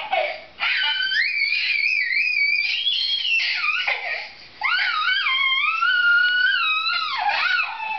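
A toddler's high-pitched squealing, two long sing-song squeals that slide up and down in pitch, the second a little lower than the first.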